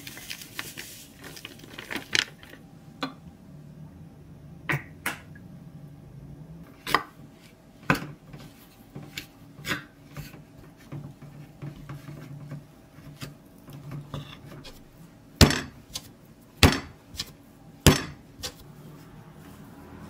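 A metal spoon clinking and scraping against a speckled enamel bowl as a powdered cookie mix is stirred with water. Scattered sharp knocks run throughout, and the three loudest come about a second apart near the end.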